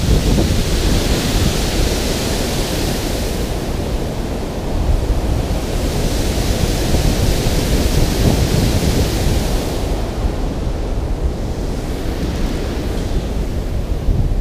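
Water rushing steadily over a spillway, a loud, even wash of noise, with wind buffeting the microphone underneath.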